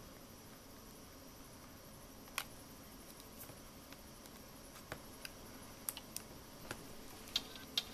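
Faint, scattered small clicks and taps of fingers handling a Nextbook Premium 7 tablet as an SD card is pushed into its slot, about eight in all, the clearest about two and a half seconds in and two more near the end, over a steady low hiss.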